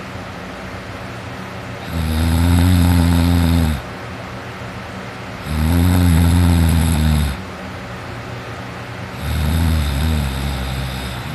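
A teenager snoring heavily while sleeping on his back: three long, loud snores, each just under two seconds, roughly every three and a half seconds, with a steady low background noise between them.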